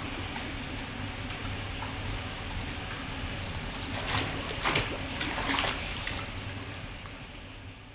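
Swimming-pool water sloshing steadily, with a cluster of splashes from a child kicking and thrashing in the water between about four and six seconds in.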